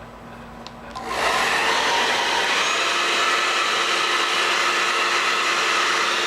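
Hand-held hair dryer switched on about a second in, then blowing loudly and steadily with a whining hum, heating a vinyl sticker to soften its glue.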